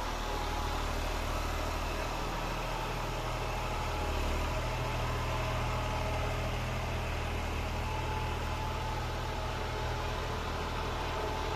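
John Deere tractor's diesel engine running steadily as it drives a rotavator through the soil, with a steady low hum.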